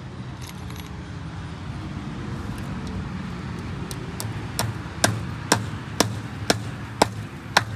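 Hammer strikes in an even rhythm of about two a second, starting softly about four seconds in and then hitting harder, typical of driving a fence staple into a wooden post. A low, steady vehicle engine hum idles underneath.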